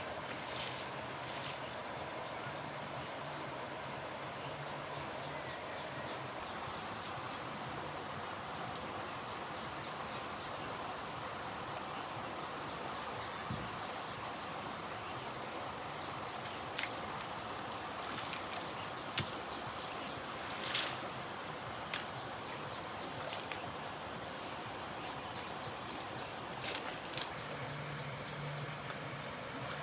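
Steady rural outdoor ambience with a continuous high insect drone. A few short knocks or clicks sound around the middle and again near the end.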